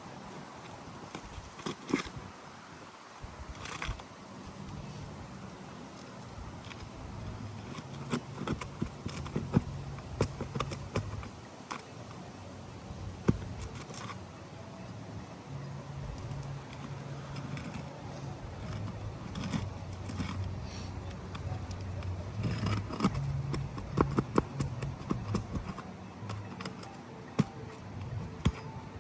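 Scraping, clicks and light metallic clinks of hand tools working on asphalt roof shingles, lifting the rows above a wind-damaged shingle. A low steady hum comes and goes in the background.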